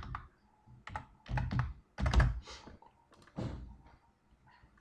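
Computer keyboard keys struck one at a time as a number is typed in, about nine separate keystrokes at an uneven pace. The loudest, about two seconds in, lands with a dull thump.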